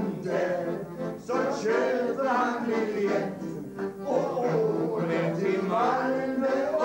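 A man singing to accordion accompaniment.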